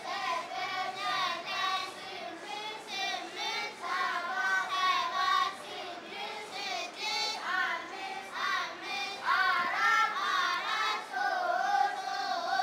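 A group of young children singing together in unison, their voices high and wavering in pitch.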